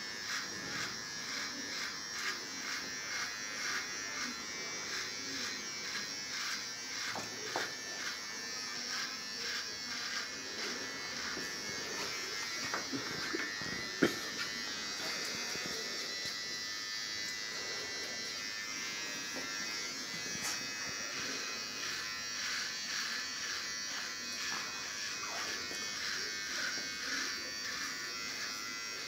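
Electric shaver buzzing steadily as it shaves a man's beard, its level flickering as it is worked over the skin. A single sharp click comes about halfway through.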